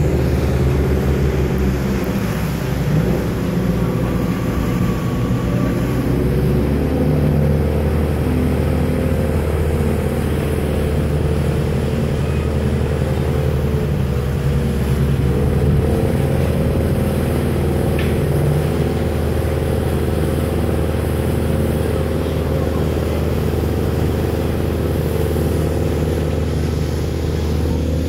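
Pilot boat's engines running alongside a ship, a steady low drone whose pitch shifts about six seconds in and again around sixteen seconds in.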